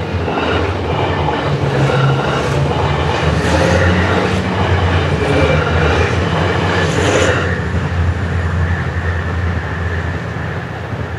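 Diesel train passing close by: a steady low engine drone with wheels clacking over rail joints. The clacks stop about seven and a half seconds in, and the drone then slowly fades.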